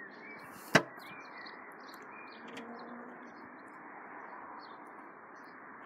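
Faint bird chirps over a steady outdoor hiss, with one sharp knock about a second in.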